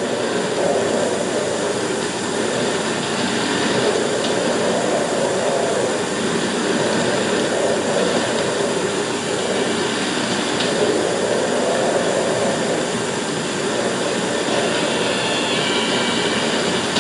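Wind rushing steadily, swelling and easing every couple of seconds: a storm-wind effect on an old 16mm film soundtrack.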